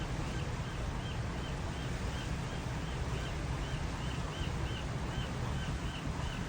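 Wind rumbling on the microphone, with a faint high chirp repeating about three times a second.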